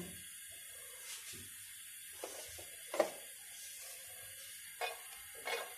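Faint steady hiss of cooking oil heating in a nonstick frying pan, with about five soft clicks and taps from a small bowl being handled over it, the clearest about three seconds in.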